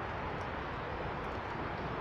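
Steady outdoor rushing noise, with a few faint high bird chirps.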